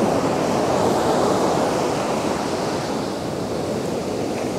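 Ocean surf washing up a sandy beach: a steady rush of breaking and receding waves.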